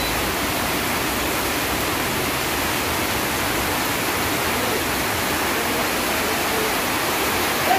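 Heavy rain falling: a steady, even rush of noise with no breaks.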